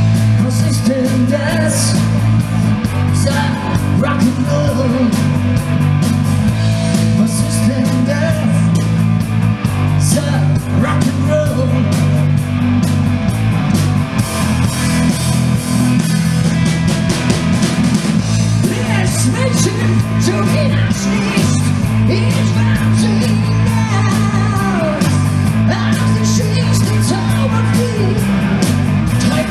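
Live rock band playing electric guitars over a moving bass line, with a male singer.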